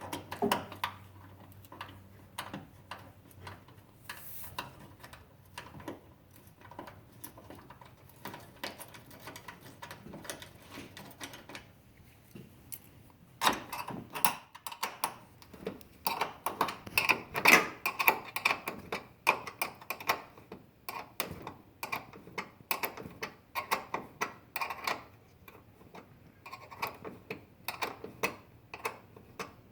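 A 7 mm end wrench clicking and scraping against a headlight's mounting bolts as they are turned out by hand. The clicks come in quick runs, sparse at first and much denser and louder from about halfway through.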